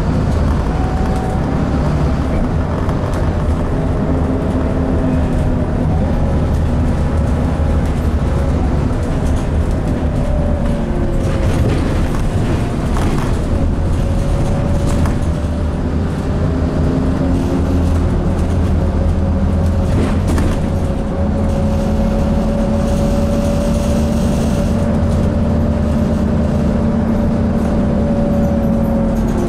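Scania N230UD Enviro400 double-decker bus under way, its five-cylinder diesel engine and driveline heard from inside the passenger saloon: a steady low drone with a whine that slides slowly up and down in pitch. A few short knocks and rattles come through around the middle.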